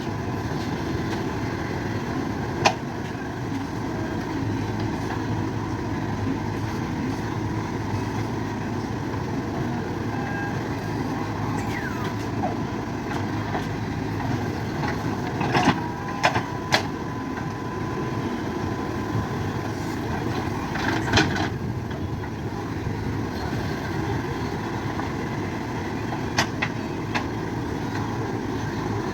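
Backhoe loader's diesel engine running steadily while it works, with occasional sharp metal clanks, a cluster of them about halfway through.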